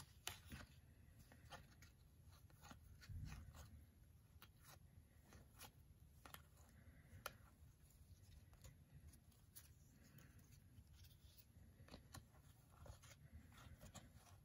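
Faint, irregular clicks and slides of baseball trading cards being flipped one by one through a small stack held in the hand.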